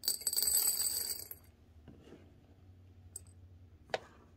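Dry cat kibble poured into a small ceramic bowl: a quick rush of pellets clattering and ringing against the bowl for about a second and a half. One sharp click near the end.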